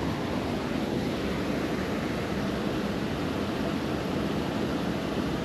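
Steady rush of water pouring over a concrete lake spillway, an even noise that doesn't change.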